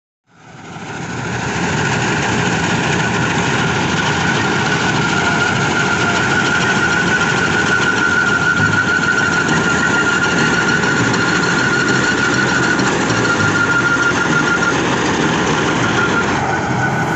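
Balkar combine harvester running as it cuts paddy: a steady engine and machinery drone with a steady high whine over it. The sound fades in over the first second or two.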